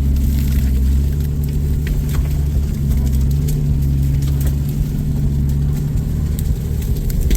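Off-road vehicle engine running steadily at low revs, heard as a deep continuous hum, with scattered light knocks and clicks over it.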